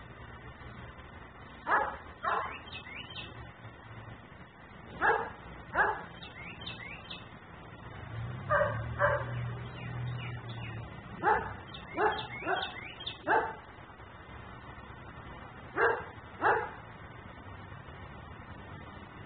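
German Shepherd barking repeatedly, about a dozen barks mostly in pairs about half a second apart, with pauses of a few seconds between pairs.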